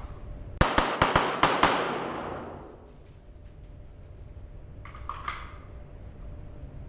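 A rapid string of about six pistol shots fired in a little over a second. Each shot echoes off the walls of an indoor range.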